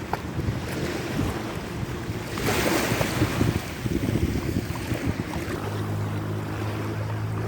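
Wind buffeting the microphone over open water, with a washing rush of waves that swells about two and a half seconds in. A steady low hum starts near the end.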